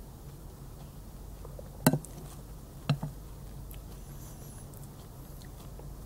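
A person eating, chewing with the mouth closed, with two loud wet smacks about two and three seconds in.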